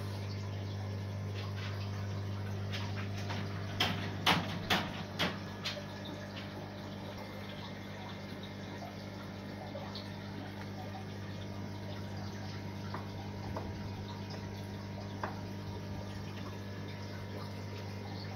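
Water trickling and splashing in a sump-filtered aquarium, over a steady low hum. About four seconds in comes a quick run of five sharp clicks or taps.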